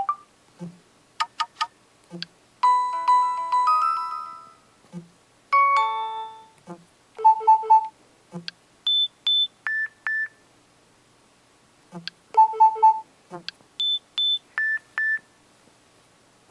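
Cell phone playing short electronic ringtones one after another: a brief beeping tune, a falling figure, then a triple beep followed by high and lower beep pairs, which repeat once. Soft clicks come in between the tones.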